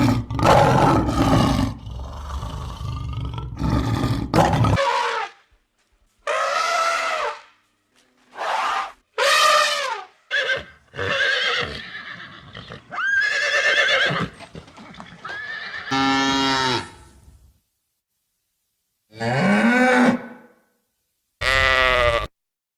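A series of separate animal calls, one short clip after another with brief silent gaps. It opens with a rough, low stretch lasting about five seconds. Several pitched calls follow, one of them a fast pulsing call about two-thirds of the way through.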